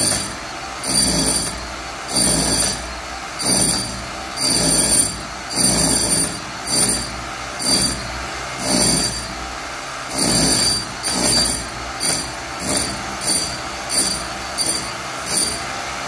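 Corded electric demolition hammer chiselling into a concrete floor in repeated short bursts. The bursts come about once a second at first and grow shorter and quicker toward the end, with a steady lower noise between them.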